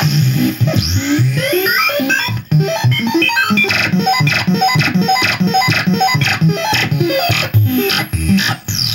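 Circuit-bent toy laser blaster making glitchy electronic bleeps and buzzes that jump in pitch several times a second in stair-step runs, cutting out briefly about two and a half seconds in.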